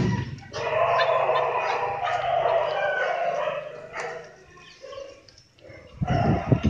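A puppy howling in one long cry of about three seconds, after a sharp knock at the start.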